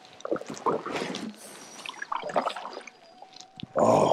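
Double-bladed kayak paddle strokes: the blades dipping and splashing and water dripping and trickling off the raised blade, with a louder splash just before the end.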